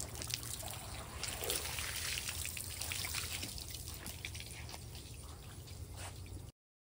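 Water from a garden hose lying on concrete, its stream spattering and trickling over the wet pavement. The sound cuts off suddenly near the end.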